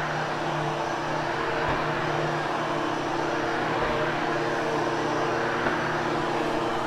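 Hoover Hushtone commercial upright vacuum running steadily, a constant motor hum under a broad rush of air.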